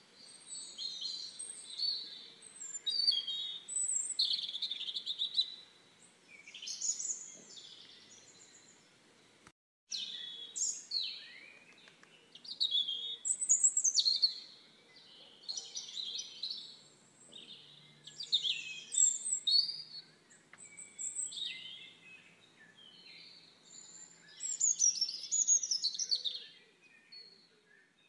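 Birdsong: birds chirping and singing in quick, high, repeated phrases, with a brief break in the sound a little before ten seconds in.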